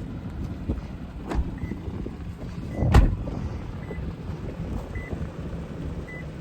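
Toyota Tacoma TRD Off-Road running at a standstill, a steady low rumble with wind on the microphone. A knock about a second in and a louder thud about three seconds in, with a faint short beep sounding about once a second.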